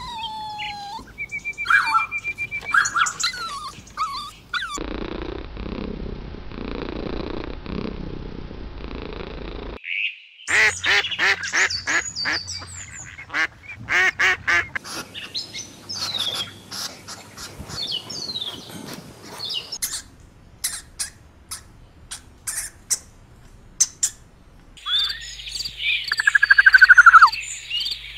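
Birds chirping and calling: whistled notes, pitch glides and quick trills, with a stretch of steady noise in the middle and a loud run of notes falling in pitch near the end.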